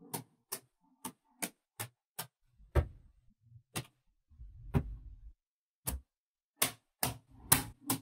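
Cubes of small magnetic balls clicking as they are set down and snap onto one another: about fifteen sharp clicks at an uneven pace, with a low thud under one about halfway through.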